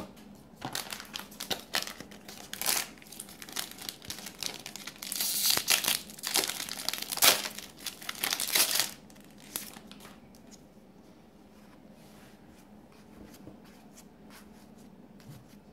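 Force of Will trading-card booster pack being torn open and crinkled by hand: a run of crackling tears, loudest past the middle, then only faint rustles as the cards are handled.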